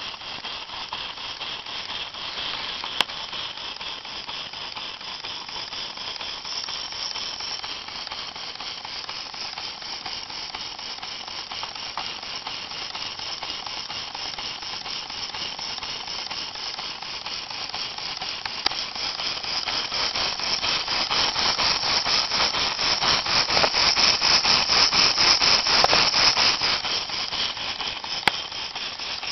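Model rectilinear steam engine running, a rapid, even beat of hissing exhaust with mechanical rattle from its slipper links and guide rails. It grows louder about two-thirds of the way through, then eases near the end, with a few single sharp clicks.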